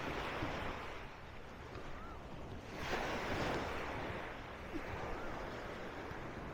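Small sea waves breaking and washing up on a sandy beach, one wash swelling about three seconds in and fading, with wind buffeting the microphone.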